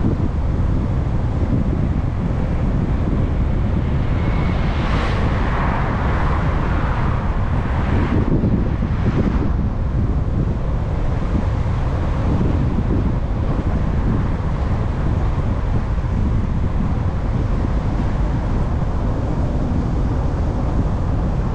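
Steady low wind and road rumble from a moving car. Two oncoming cars swish past, about five seconds in and again around nine seconds in.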